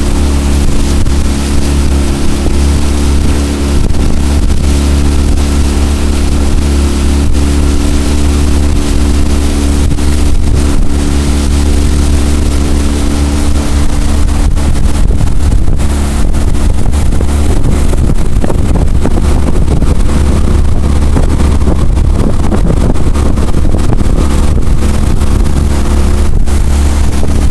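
A jon boat's outboard motor running at a steady pitch while the boat is under way.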